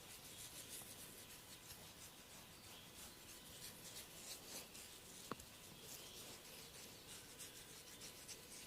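Faint scratching and rubbing on hair and scalp during a head massage, with one sharp click about five seconds in.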